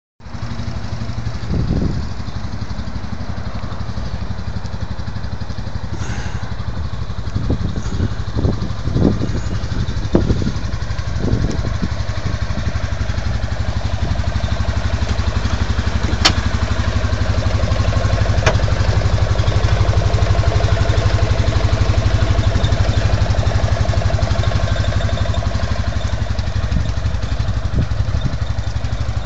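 2013 CF Moto Rancher 600 UTV's engine idling steadily, with a few light knocks in the first half and two sharp ticks a little past the middle.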